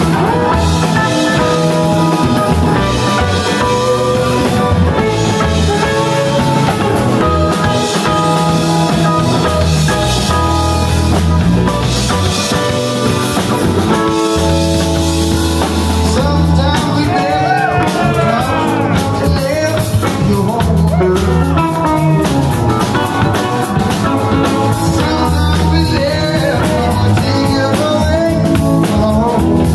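Live rock band playing: electric guitars, drum kit and keyboard, loud and continuous. About halfway through, the lead line starts sliding and bending between notes.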